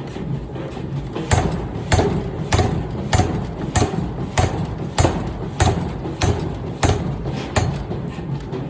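Pneumatic forging hammer striking hot metal in a steady rhythm, a little under two blows a second, over the steady hum of machinery.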